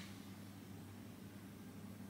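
Quiet room tone with a faint steady low hum.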